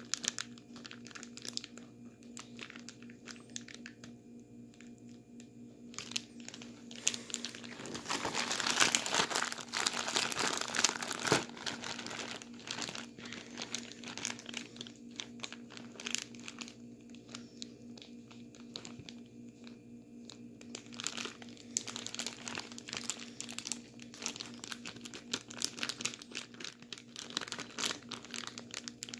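Plastic bag crinkling and crunching as it is shaken and squeezed with ice and salt inside. It is louder and busier for a few seconds about a third of the way in.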